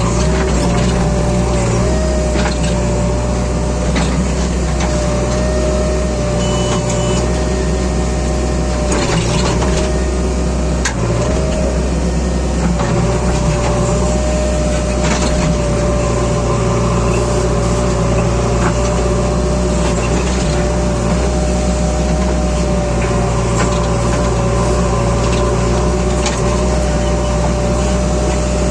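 Diesel engine of a JCB 3DX backhoe loader running steadily at work, with a steady high whine over the low drone and a few sharp knocks.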